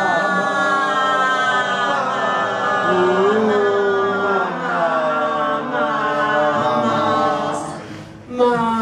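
A woman's voice singing long wordless notes into a microphone, the pitch sliding up and down; it breaks off briefly near the end and comes back loudly.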